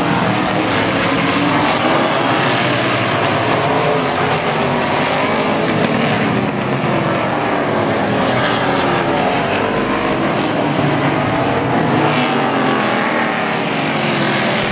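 Several stock car racing engines running together as the field circulates the oval, their pitches rising and falling in overlapping glides as cars accelerate and pass.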